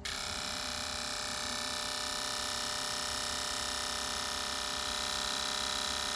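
Autool CT400 fuel injector tester running its high-speed test, four fuel injectors firing rapidly and spraying test fluid. It starts abruptly and holds a steady, fast buzzing with a high whine.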